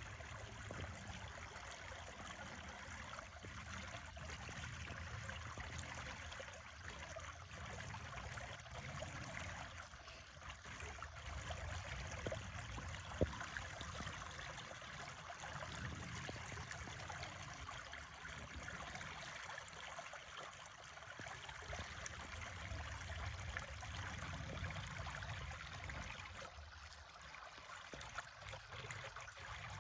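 Creek water flowing steadily, with a low rumble that swells and fades underneath and a single sharp click about halfway through.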